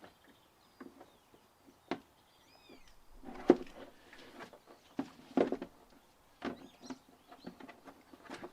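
Irregular knocks and clicks of stiff plastic parts being handled and pushed together while the lawn mower's grass catcher is assembled, the loudest about three and a half and five and a half seconds in. A few short bird chirps are heard, about three seconds in and again near seven seconds.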